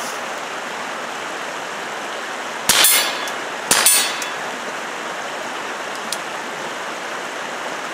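Two shots from a Taurus TX22 .22 LR pistol fitted with a fuel-filter (solvent-trap) suppressor, about a second apart, each a sudden report with a short ringing tail. A faint click follows about two seconds later.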